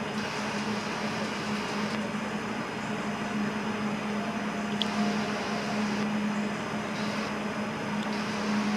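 Steady hum of an indoor ice rink's machinery and ventilation, a constant low drone over even air noise, with one brief tick about halfway through.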